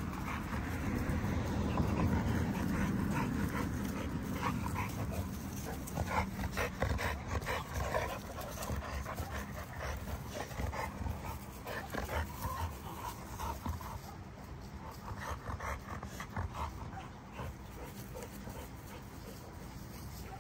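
American bully dogs panting as they wrestle and tussle together in play.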